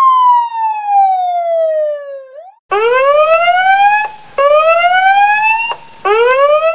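Emergency-vehicle siren sound effect: one long wail falling steadily in pitch for about two and a half seconds, then after a short break a siren that rises in pitch again and again, each rising sweep about a second and a half long and cut off abruptly before the next starts.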